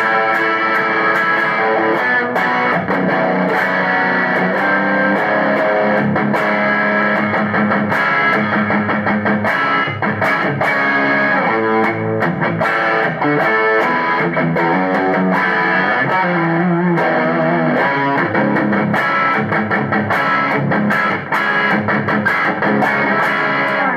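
Electric guitar played through a Zoom G3Xn multi-effects pedal on a second-stage overdrive preset: a steady run of distorted picked notes and chords, stopping right at the end.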